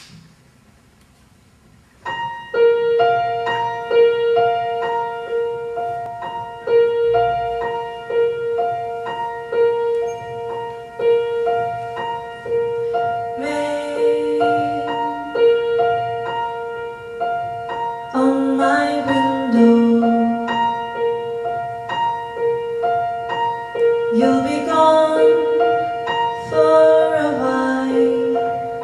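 Piano comes in about two seconds in with a gently repeating figure of notes over one held, repeated tone. About halfway through, a woman starts singing over it, in phrases with short gaps.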